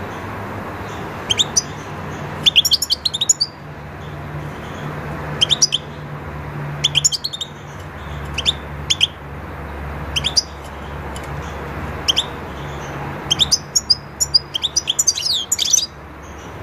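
European goldfinch calling: short bursts of quick, high twittering notes every second or two, with a longer run of song near the end.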